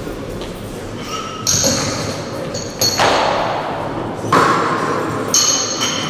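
Loaders changing the plates on a weightlifting barbell: several sudden metallic clanks as plates and collars knock against the steel bar sleeves, each leaving a short ringing ping, in a reverberant hall.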